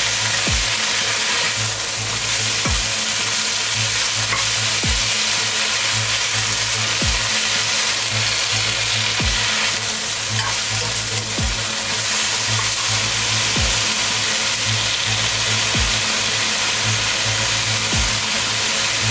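Mustard greens and beef sizzling steadily in a hot wok while being stirred and tossed with a spatula. Electronic background music runs underneath, with a deep beat about every two seconds.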